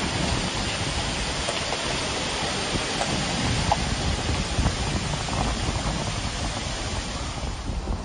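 Waterfall and stream rushing steadily, with wind buffeting the microphone underneath. The rushing fades somewhat near the end.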